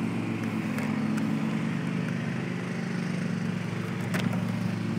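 Petrol lawn mower engine running at a steady drone, with a couple of brief clicks about four seconds in.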